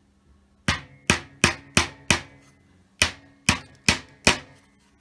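Hammer tapping the short nails of a picture hanger into a wooden board: five quick strikes, a pause of about a second, then four more.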